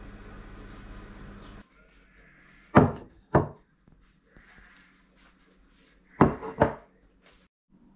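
Ceramic plates set down on a wooden table: two pairs of sharp knocks, one pair near three seconds in and another just after six seconds.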